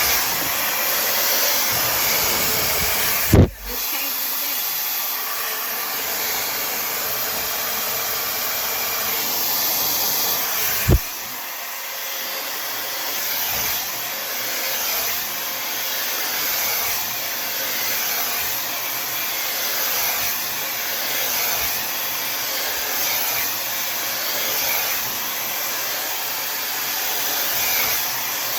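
Tymo Air Hype hair dryer blowing steadily as it dries and straightens wet hair. Two sharp knocks break the air noise, about three and a half seconds in and again about eleven seconds in.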